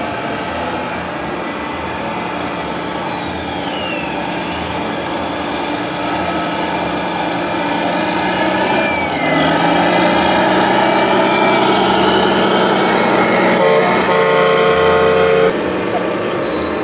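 Radio-controlled semi-truck running along the track, its motor sound steady and growing louder as it comes close, with a step up in pitch about nine seconds in. Near the end a loud held pitched tone sounds for about two seconds and cuts off sharply.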